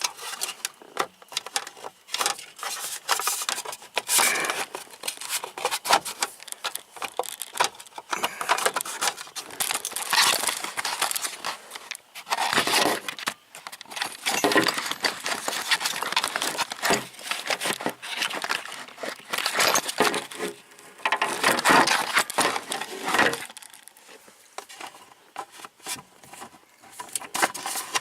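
Irregular clicking, rattling and rubbing of the steering-column covers and turn signal switch being handled and worked loose by hand, in uneven bursts with short pauses.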